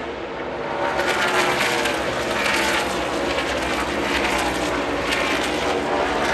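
NASCAR Cup Series stock cars' V8 engines running at speed as they pass on the oval, the engine notes rising and falling as the cars go by.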